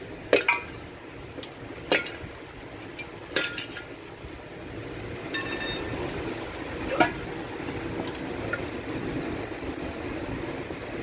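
Metal tools and engine parts clinking and tapping during an engine teardown, with one ringing metallic ping about five seconds in. A steady low hum comes up from about six seconds in.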